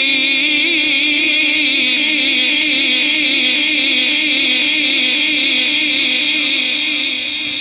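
Male qari reciting the Quran in melodic tilawat style, drawing out one long ornamented note with a quivering, wavering pitch that fades near the end.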